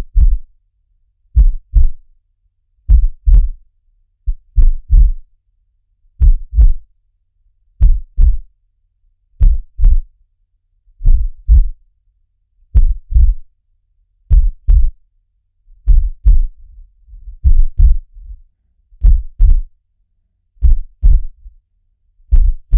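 Looped heartbeat sound: slow, steady lub-dub double thumps, low and deep, one pair about every second and a half.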